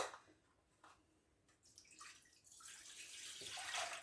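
Cold milk being poured, a steady pouring splash that starts about two and a half seconds in and grows louder. A sharp click comes right at the start.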